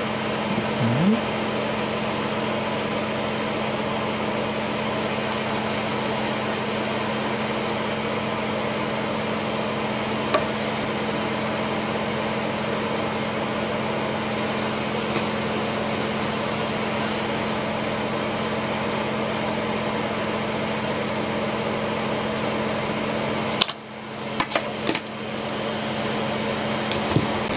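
Steady mechanical hum in the room, with a soldering iron working the pins of an ESP32 module: a brief hiss about halfway through as the hot tip meets fluxed pins. Near the end come a few light clicks and knocks of handling, and the hum dips out for a moment.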